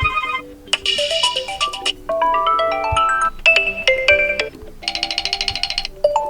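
Built-in ringtones of a TCL 403 smartphone previewed one after another: short snippets of several different electronic melodies, each cut off after a second or so when the next begins. They include a rising run of notes and, near the end, a fast pulsing trill.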